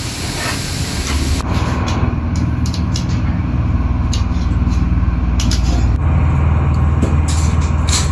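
Steady low drone of a cargo ship's engines and machinery, with scattered clicks and scrapes as a paint can lid is pried open and the paint stirred.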